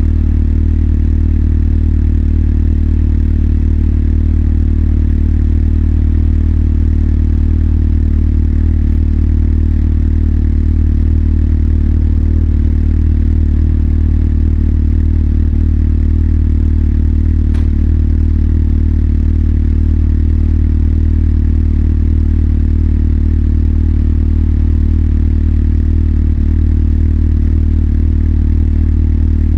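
Motorcycle engine idling steadily at one unchanging pitch.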